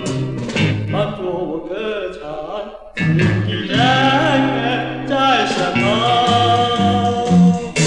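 A 1960s Hakka pop song: a man singing over a small beat band of guitars, bass and drums. The backing thins out briefly and the full band comes back in about three seconds in.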